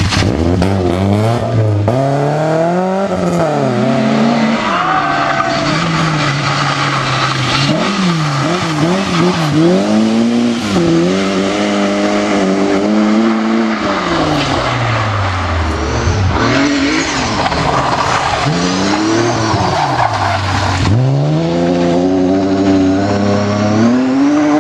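Rally car engine revving hard and falling back again and again: repeated rising climbs through the gears with sharp drops on lift-off and braking, as the car drives a twisty stage.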